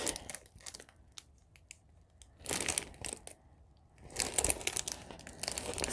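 Packaging being handled, crinkling and rustling, with scattered light clicks; a burst of rustling about two and a half seconds in and more from about four seconds on.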